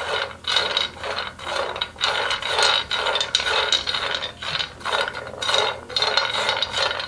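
Almonds, walnuts and shelled pistachios rattling and skittering across a dry non-stick frying pan as a silicone spatula stirs them while they toast without oil. The stirring comes in strokes about twice a second.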